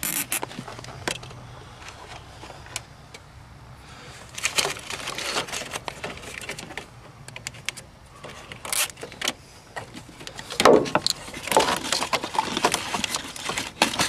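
Hands working among plastic engine-bay covers and wiring: scattered clicks, taps and rustles of plastic and cable, busier and louder in the last few seconds.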